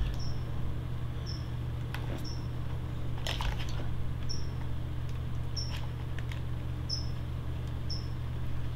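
Short high chirps repeating about every three-quarters of a second over a steady low hum, with a few light clicks from handling small plastic hobby parts.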